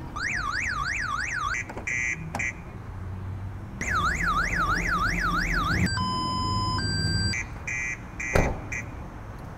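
Car alarm sound played from a Bluetooth speaker hidden under a car, cycling through its tones: a fast up-and-down warbling siren, bursts of short beeps, and a stepped run of steady pitches. A sharp knock comes near the end.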